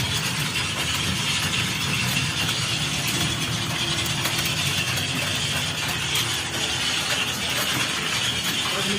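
A steady mechanical hum with a hiss, unchanging throughout.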